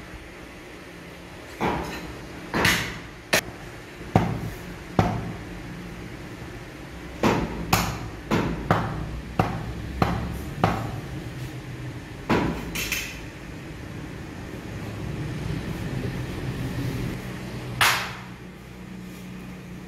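Butcher's cleaver chopping meat on a thick wooden chopping block: irregular sharp chops, several in quick runs, then a lull and one last chop near the end, over a low steady hum.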